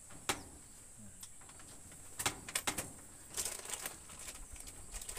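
Scattered sharp knocks and taps, one near the start and small clusters a couple of seconds in and again a little later, over a steady high-pitched insect drone.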